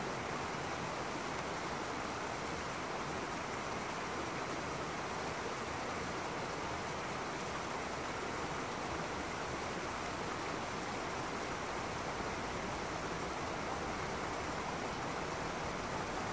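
Small stream running over rocks in a short cascade: a steady, even rush of water.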